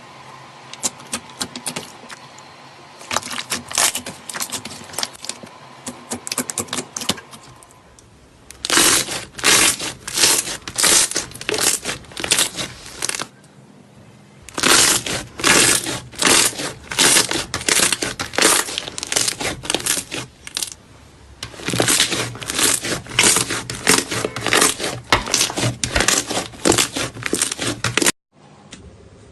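Slime being squeezed and pressed by hand, giving runs of crackling and popping at about two or three squeezes a second, broken by short pauses.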